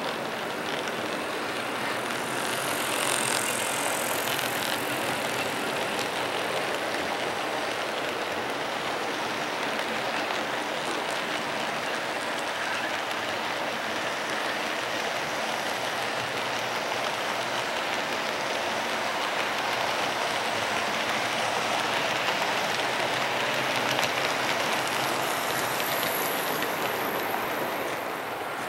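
HO-scale model freight train of covered hoppers rolling past on the track, a steady rumble and rattle of small metal wheels on the rails.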